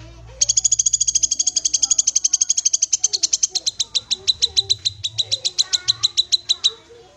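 Cucak kinoi calling: a long, very fast run of sharp, high chipping notes, roughly a dozen a second. The run starts about half a second in and breaks off shortly before the end.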